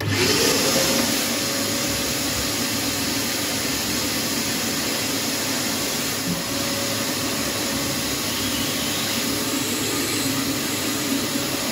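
Vacuum cleaner switched on, its motor spinning up with a rising whine in the first half-second and then running steadily, the hose held to the end of the copper pipework under the sink.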